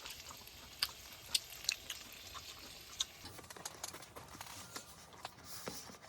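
Scattered light clicks and taps of a meal at the grill, a few sharp ones each second over a quiet background.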